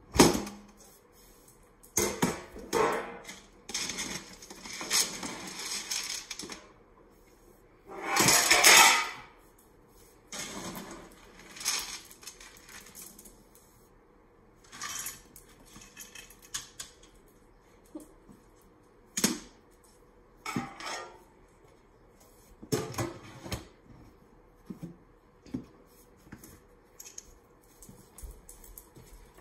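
Dry pet food being scooped from a bin into a stainless steel bowl: kibble rattling against the metal bowl in a series of separate clattering bursts. The longest and loudest rattle comes about eight seconds in.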